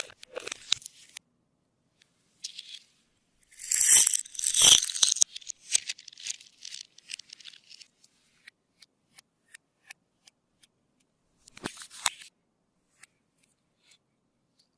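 Clear slime with glitter mixed in, being squeezed and stretched by hand, giving sticky crackles, clicks and small pops. A loud run of crackling comes about four seconds in and a shorter one near the end, with sparse clicks between.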